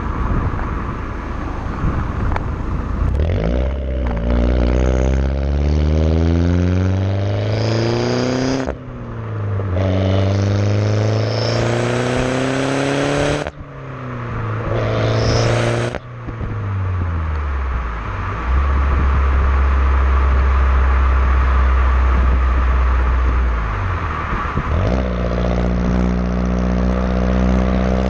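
Peugeot 208 GTi's 1.6-litre turbocharged four-cylinder heard at the tailpipes through a custom exhaust with the rear silencer removed and dual round tips. The engine climbs through the revs three times, each rising note cutting off sharply at a gear change, then holds a steady low drone while cruising, stepping up a little near the end.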